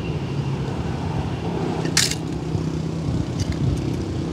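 Steady low rumble of background noise, with a faint hum in it, and one sharp click about two seconds in, then a few faint ticks.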